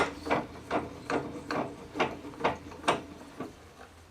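Chain leg vise being wound in on its screw: a regular run of sharp mechanical clicks, a little over two a second, fading out near the end.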